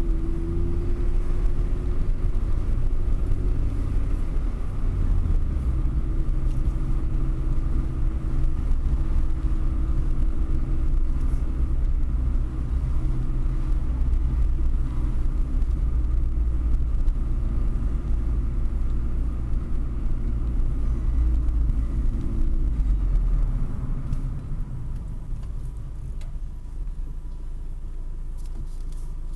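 Car engine and road rumble heard from inside a car moving slowly in traffic. It turns quieter for the last few seconds as the traffic comes to a stop.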